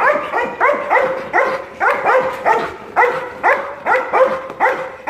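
A dog barking fast and high-pitched at a decoy in a bite suit, about two to three barks a second without a break: excited barking of a protection-sport dog in drive.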